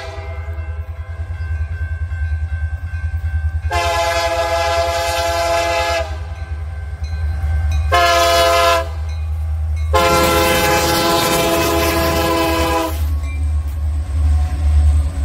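Diesel locomotive air horn sounding the grade-crossing signal: the tail of a long blast, then a long blast, a short one and a final long one. A steady low rumble from the locomotives' diesel engines runs underneath.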